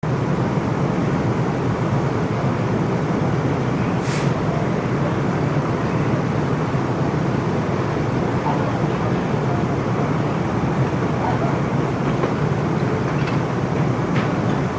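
Steady low drone of fire engines running at the scene, with a brief faint hiss about four seconds in.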